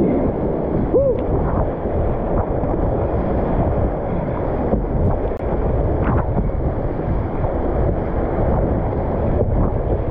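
River rapids rushing and splashing close around a whitewater kayak as it is paddled down through the whitewater; a steady wash of moving water throughout.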